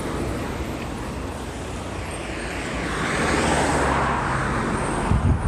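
Road traffic: a car passes close by, its engine and tyre noise swelling about halfway through and then easing.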